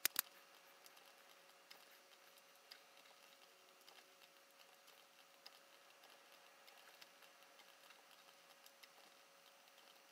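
Near silence: faint room tone with a faint steady hum, two sharp clicks right at the start, then faint scattered ticks.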